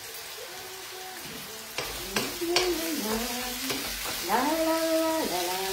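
Sliced artichokes sizzling in a wok, stirred with a wooden spoon that knocks against the pan a few times about two seconds in. A slow sung melody plays over it, strongest in the second half.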